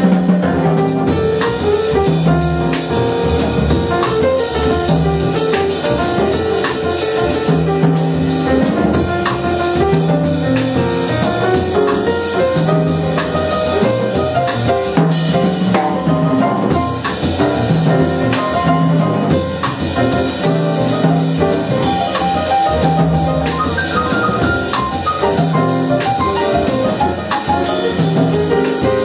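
Jazz piano trio playing steadily: grand piano, plucked upright double bass, and a drum kit played with sticks on drums and cymbals.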